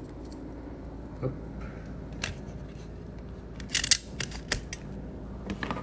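Handling noise from the phone camera being moved and repositioned: a few scattered clicks and light knocks, with a cluster of sharper clicks about four seconds in, over a steady low hum.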